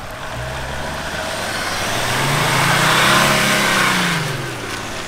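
Jeep Grand Cherokee engine revving under load as it climbs out of a muddy rut and drives up close by, the engine note rising to a peak about three seconds in and then falling away.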